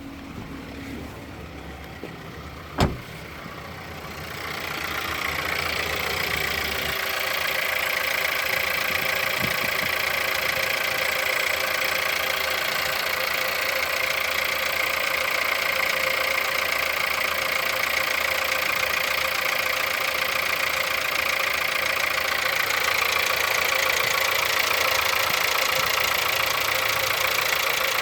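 Car engine idling on a cold start, with a fast knocking in the engine. A sharp click comes about three seconds in. The engine sound grows louder about four seconds in and then holds steady.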